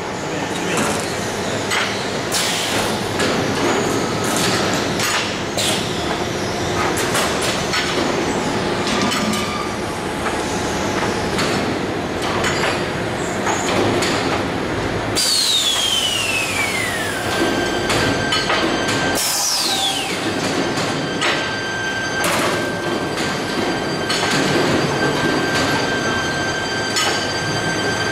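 Automatic sheet-metal air-duct production line running: galvanized steel sheets clanking and rattling on the conveyors and folding machine, with repeated metallic knocks over a steady machine noise. About halfway through come two falling whistling glides, followed by a steady high whine that continues to the end.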